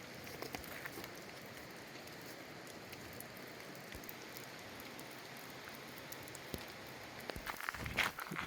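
Light rain pattering steadily, with scattered small drips. Footsteps start near the end.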